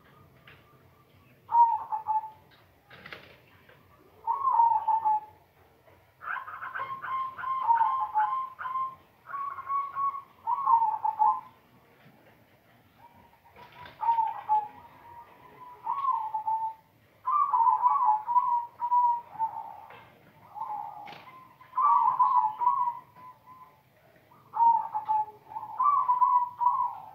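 Caged silver zebra dove (perkutut) singing its cooing song: repeated phrases of quick, rolling, wavering coos, a phrase every couple of seconds with short pauses between.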